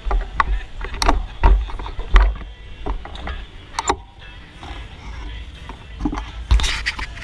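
Bicycle riding heard from a GoPro on board: a low wind rumble on the microphone with irregular knocks and rattles from the bike.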